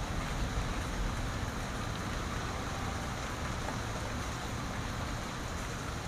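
Steady rain falling on leaves, an even hiss of drops, with a low rumble underneath.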